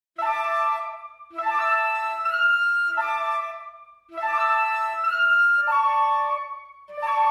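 Music: a flute-like melody played in short phrases, starting abruptly after silence.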